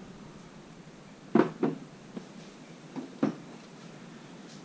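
12-gauge pump-action shotgun being racked twice: each time a sharp clack-clack as the fore-end slides back and forward, cycling a snap-cap dummy round through the action.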